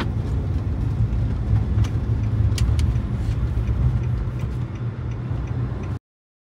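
Car driving at highway speed, heard from inside the cabin: a steady low road and engine rumble with a few faint clicks. It cuts off suddenly about six seconds in.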